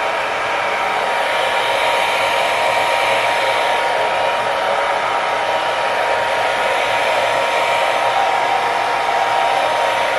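Handheld hair dryer blowing steadily, with a thin constant whine over the rush of air, drying a freshly sprayed layer of wig adhesive until it turns tacky.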